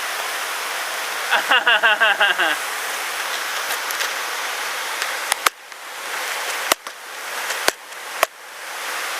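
Steady rush of a waterfall. About a second and a half in there is a quick run of high-pitched notes. In the second half come several sharp clicks, and after each one the water sound dips and slowly comes back.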